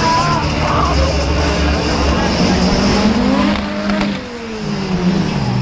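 A car engine revving: its pitch rises for about a second, then falls away over the next two seconds, over background music.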